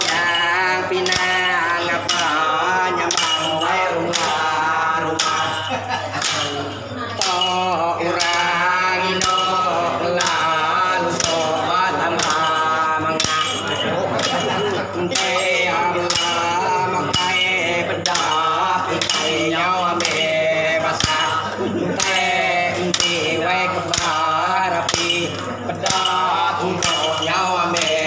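Iban lemambang bards chanting a ritual chant in long, wavering sung lines, while their tall bamboo ritual staffs strike the floor in a steady beat, about three strikes every two seconds.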